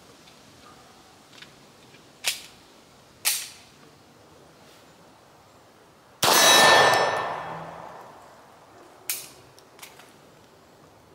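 Beretta 92FS 9mm pistol firing single shots at an uneven pace. There are sharp cracks about two and three seconds in and again near nine seconds. One much louder shot about six seconds in rings on and dies away over a couple of seconds.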